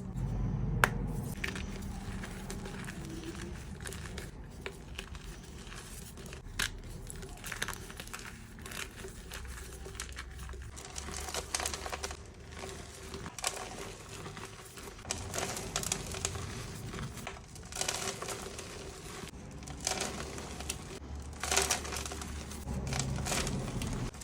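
Reformed gym chalk blocks being crushed, giving a continuous run of dry, irregular crunches and crackles.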